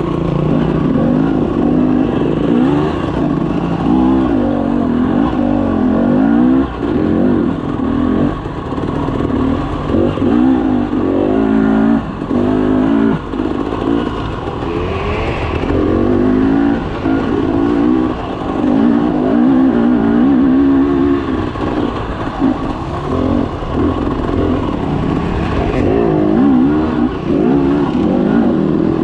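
Off-road dirt bike engine revving up and down with the throttle, its pitch climbing and dropping again every second or two through gear changes, heard close up over a steady rush of noise.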